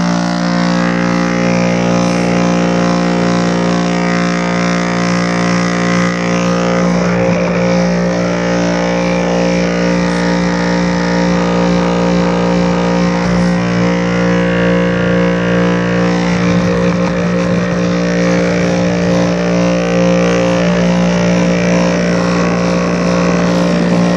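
Homemade shaker classifier running: a repurposed tile saw motor spinning an off-centre bolt with washers, shaking a bucket sieve of sand on a plywood-topped tire. It comes on at once and runs with a loud, steady hum and vibration.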